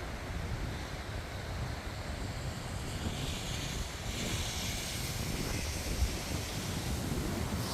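Car driving in heavy rain, heard through a dashcam: a steady low road rumble, with a hiss of wet tyres and spray that builds from about three seconds in.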